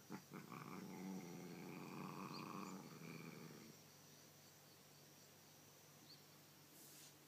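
A cat's low, drawn-out growl lasting about three and a half seconds, then stopping: a warning to another cat in a standoff.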